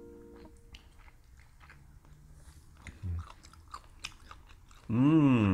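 Quiet chewing and biting of barbecued whole squid, with small wet mouth clicks close to a clip-on microphone, then a loud hummed 'mmm' of enjoyment near the end.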